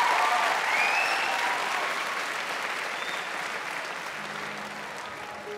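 Large theatre audience applauding and cheering, the applause slowly dying away.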